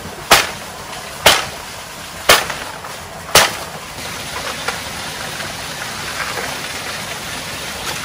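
Wood being chopped with a blade: four sharp chops about a second apart, stopping about three and a half seconds in.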